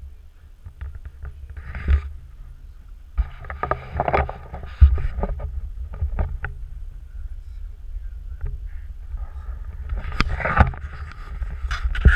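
Low rumble of wind on an action-camera microphone, with knocks and scraping as the camera is picked up and handled; the loudest knock comes about five seconds in.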